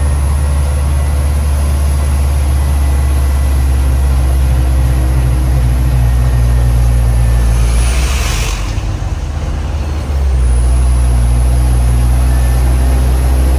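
Sand-laden dump truck's engine running steadily as it drives. About eight seconds in there is a short hiss, and the engine note drops for about two seconds before it picks up again.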